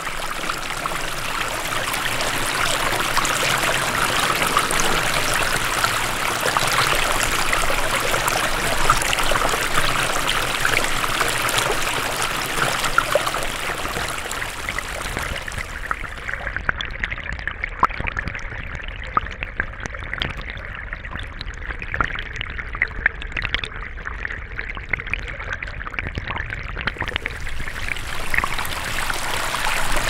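Small rocky stream trickling and splashing. It is first heard through microphones just above the water as a full, bright hiss. About halfway through it switches to a hydrophone in the water: muffled, the high hiss gone, with small bubbling clicks and pops. A few seconds before the end it switches back to the air microphones.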